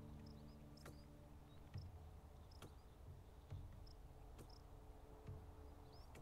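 Near silence: faint outdoor ambience with short, high chirps every second or so, and faint ticks and soft low thumps about every two seconds.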